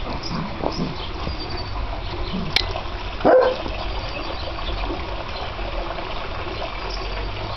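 Bernese mountain dog puppy giving one short bark about three seconds in, just after a sharp click.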